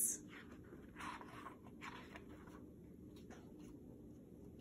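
Pages of a picture book being turned: two soft paper rustles, about one and two seconds in.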